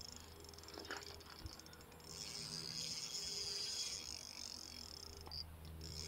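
Spinning reel's drag buzzing in rapid clicks as a hooked wels catfish pulls line off, breaking off briefly near the end and starting again.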